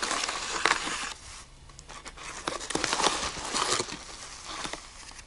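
Crinkling and rustling of a yellow padded mailer envelope and paper as the kit's wiring and instruction sheet are pulled out of it, in irregular crackly bursts that die down near the end.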